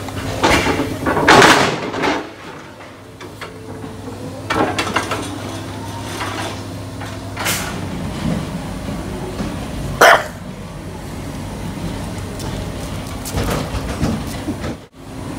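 English bulldogs barking in short single barks every few seconds, the loudest about ten seconds in, over a steady low hum.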